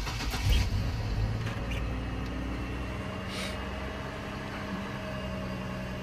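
2004 GMC Envoy engine catching with a brief rev about half a second in, then settling into a steady idle. It is the first start on a new ignition switch, idling without the rough, fluctuating idle and cut-outs that the old switch caused.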